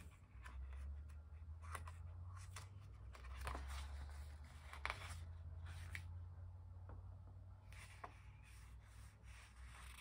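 Sticker-book pages rustling and flapping as they are leafed through, with small scattered ticks and rubs of paper. A steady low hum runs underneath.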